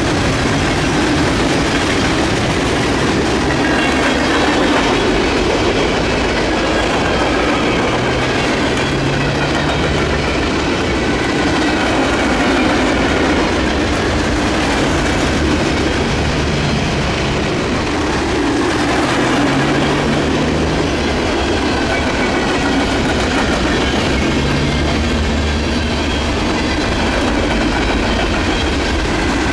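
Freight train cars rolling past, wheels clacking over the rail joints in a steady run, with a faint high wheel squeal wavering above it.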